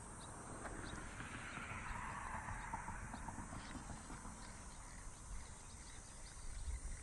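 Faint whir and light clicking of a spinning reel being cranked, reeling in line with a fish on; the whir swells about a second in and fades after a few seconds.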